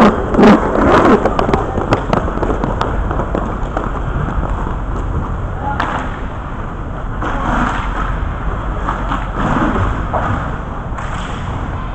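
Inline hockey play close to the goal: sharp clacks of sticks and puck in the first few seconds, the loudest right at the start. After that, the steady rumble of skate wheels on the rink floor and players' shouts.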